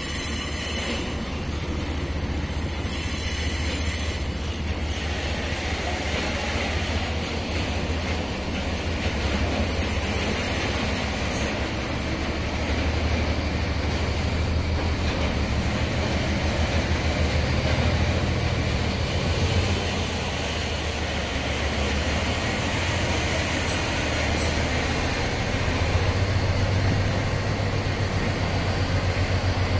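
Freight train of container flat wagons rolling past, a continuous rumble of steel wheels on the rails. A low diesel hum grows louder over the last few seconds as the train's locomotive draws near.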